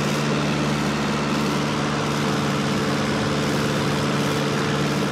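Small propeller airplane's engine droning steadily, heard from inside the cockpit.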